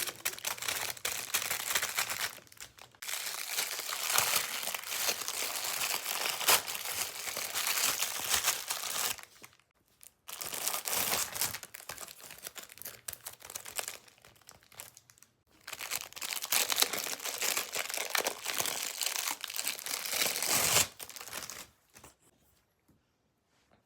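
Packaging being unwrapped: crinkling and tearing in long stretches, broken by a few short pauses.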